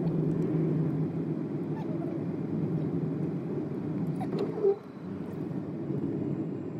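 Subaru Forester driving slowly on packed snow, heard from inside the cabin: a steady low rumble of engine and tyres. A short, louder squeak comes about two-thirds of the way through.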